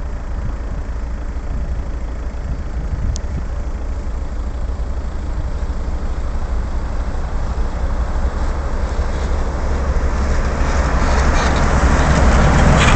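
A PZH95 rotary snowplow train, pushed by CFR Class 60 diesel-electric locomotives, approaching along the track, its steady deep rumble growing louder as it comes closer and loudest as it draws level near the end.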